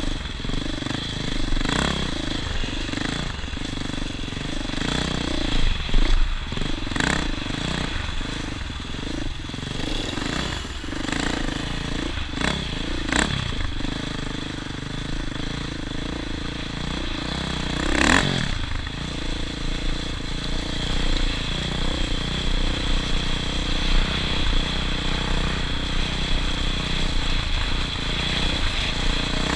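A vehicle running steadily, with a few sharp clicks or knocks.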